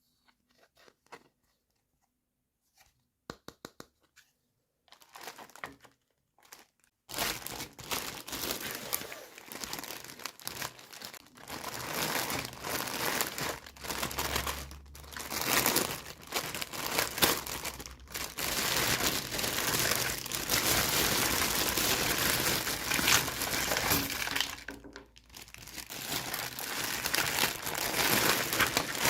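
Toy packaging being handled and torn open: a few soft clicks and taps at first, then from about seven seconds in, continuous crinkling and tearing, with a short pause near the end.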